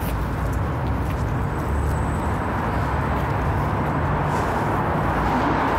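Steady city street noise: the even rumble of road traffic, with no single event standing out.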